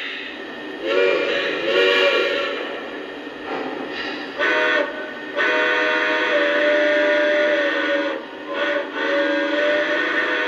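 Model steam locomotive steam-whistle sound playing from an O-gauge engine's onboard sound system: a chime whistle with several notes at once. Two blasts come about a second in, then a short blast, a long one, another short one and a final long one, over the engine's steady running sound.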